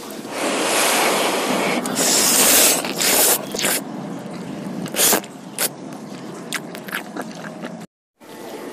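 Close-miked eating sounds from a bowl of soupy curry noodles and meatballs. A long noisy stretch of eating noise in the first few seconds is followed by a run of sharp clicks and small wet mouth and utensil sounds. The sound cuts out briefly near the end.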